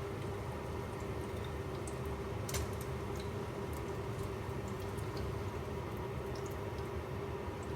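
Steady room hum with a constant low tone, broken by a few faint small clicks, one about two and a half seconds in.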